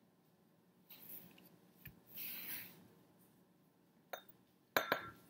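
Plastic measuring spoon scooping colored granulated sugar in a glass bowl, with a short faint rustle of granules, then light clinks as the spoon taps against a glass beaker near the end, two sharp ones close together.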